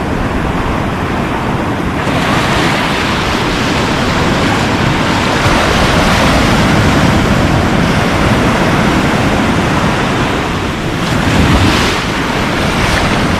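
Surf breaking on the shore in a steady, loud rush, with wind buffeting the microphone.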